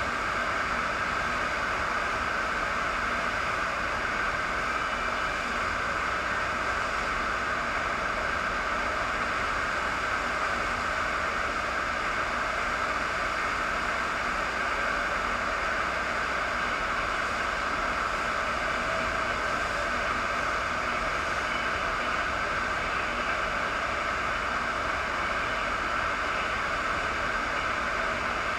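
Steady rush of water from a FlowRider surf simulator, a thin, fast sheet of pumped water pouring up the ramp, unbroken and even throughout.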